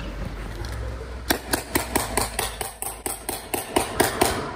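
Tippmann paintball gun firing a rapid string of shots, about four to five a second. The shots start about a second in and stop near the end.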